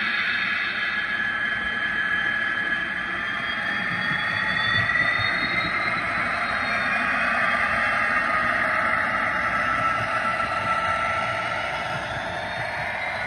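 Electric motors of model railway locomotives whining as the trains run, several tones slowly gliding up and down in pitch and crossing one another, over a steady running noise.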